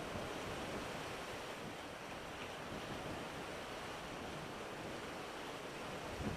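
Sea waves washing in and breaking on low flat rocks along the shore: a steady surf wash that eases slightly midway and swells again near the end.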